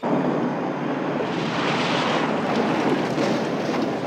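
Pontiac Firebird Trans Am driving fast across a dirt field: a steady rush of engine and tyre noise that starts suddenly, with a few light crackles from about two seconds in.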